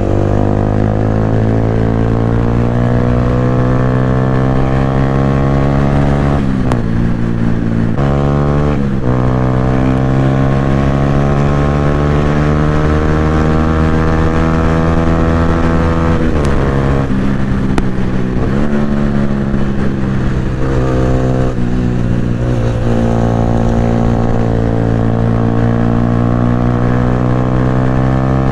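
Exhaust note of a Yamaha R15 V3's single-cylinder engine through a loud aftermarket Akrapovic exhaust, under way on the road. The note climbs slowly, then drops sharply several times, as the rider changes gear.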